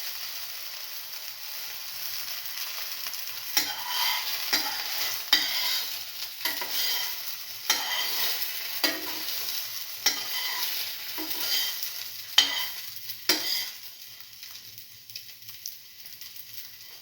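Egg-dipped bread slice frying in oil in a pan, with a steady sizzle. From a few seconds in until near the end, a utensil scrapes and taps in the pan about once a second; after that only the sizzle is left.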